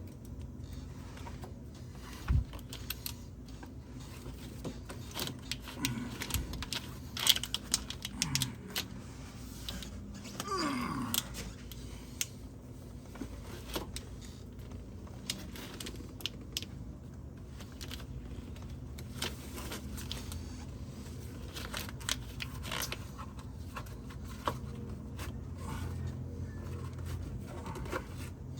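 A tie-down strap being hooked up and pulled tight to drag a UTV's battery box aside: scattered clicks, knocks and scrapes of metal and plastic, with a short sliding sound a little after ten seconds in, over a steady low hum.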